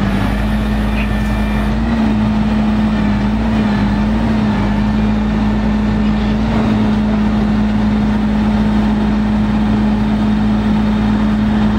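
Flatbed boom-crane truck's diesel engine running steadily to power the crane while it is worked, a constant drone with a slight waver in pitch over a low rumble.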